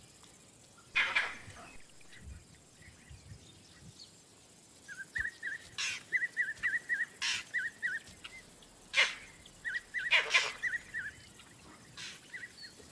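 Vervet monkey alarm calls: a sharp call about a second in, then several more sharp calls from about six seconds on, over a quick run of short high chirps. The monkey is alarmed by an approaching predator.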